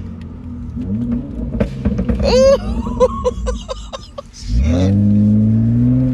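Acura TL's J35 V6 with a crackle tune: exhaust pops and crackles as the revs drop, a quick string of sharp pops about two to four seconds in. Then the engine is revved up sharply and held high near the end.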